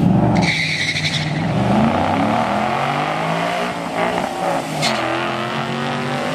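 A drag car launching off the starting line: the tires squeal briefly as it leaves, then the engine revs up through the gears, its pitch rising and dropping back at each upshift as it pulls away.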